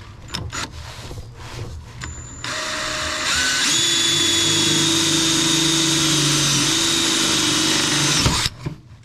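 Power drill boring a rivet hole through the aluminum catalytic converter shield: a few light knocks, then the drill starts a couple of seconds in, picks up speed and runs steadily with a high whine for about five seconds before stopping near the end.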